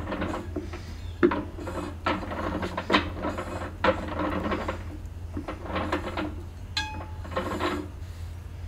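Brake shoes dragging lightly inside a hand-spun Ford 4000 tractor rear brake drum: a scratchy rubbing that comes in repeated swishes as the drum is pushed round, with a few knocks from the gears turning. The slight drag is the sign that the star-wheel adjuster is set about right.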